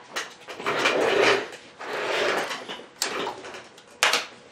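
Hands moving a laptop logic board and tools about on a workbench: a few rustling, scraping swells and two sharp knocks, one about three seconds in and a louder one near the end.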